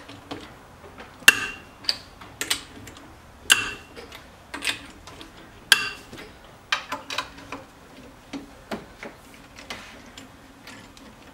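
A wrench and socket working a car wheel's lug nuts loose: scattered metallic clicks and clinks, with three louder ringing clinks about two seconds apart.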